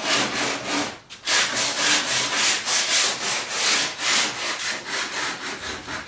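Cherry wood window trim being sanded in quick back-and-forth strokes, about three a second, with a brief break about a second in.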